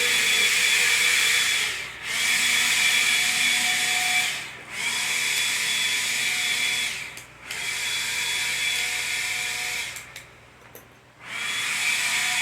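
A small electric power tool, drill-like, whirring with a steady high whine. It runs in stretches of two to three seconds, spinning down and starting up again about four times, with the longest stop near the end.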